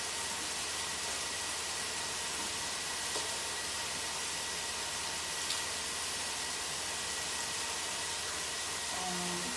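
Chicken pieces sizzling steadily in a frying pan, an even hiss, with a couple of faint light clicks.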